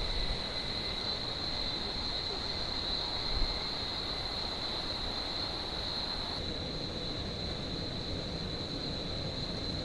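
Steady rush of cascading waterfall water, with a constant high-pitched insect drone over it. A couple of low thumps, the loudest about three and a half seconds in.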